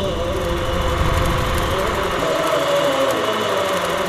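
Film projector running: a steady mechanical whirr and clatter, with a wavering tone over it.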